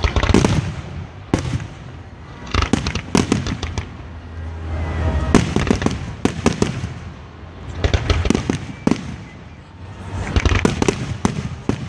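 Aerial fireworks bursting in a run of loud, sharp bangs that come in quick clusters every second or two, over a low rumbling echo.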